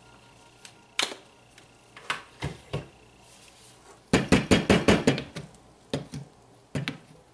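Stick blender head tapped against the rim of a plastic pitcher of soap batter, with the blender switched off. A few single knocks come first, then a quick run of about eight knocks around the middle, then two more.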